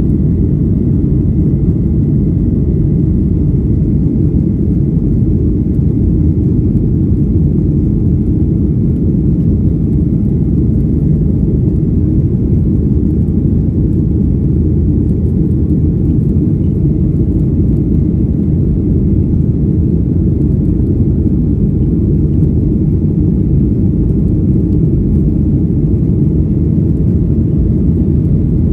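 Steady low rumble inside the passenger cabin of a Boeing 737-800 in flight after takeoff: its CFM56 jet engines and the airflow over the fuselage, even and unchanging.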